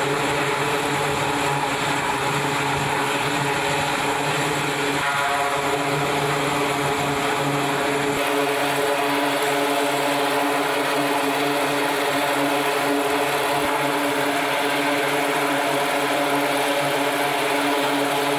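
The twin Allison T56 turboprop engines of an E-2C Hawkeye running with propellers turning: a steady drone of several held tones over a rushing hiss. The tones shift about five seconds in, and the deepest hum drops away a few seconds later.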